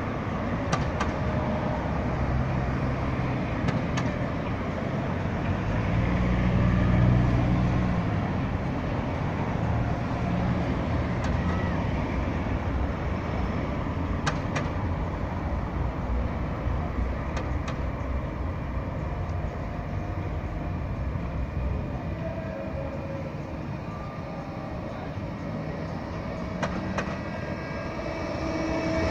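Steady street traffic, with a vehicle engine hum swelling about seven seconds in. Near the end a Bombardier Flexity 2 tram running on street rails approaches and grows louder as it comes close.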